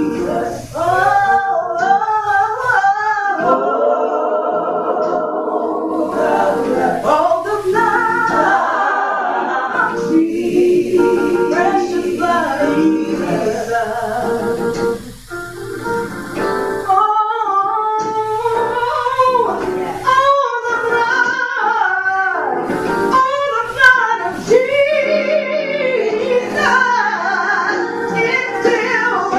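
A small group of women singing a gospel song together, their voices sliding and bending through held notes, with one short break about halfway.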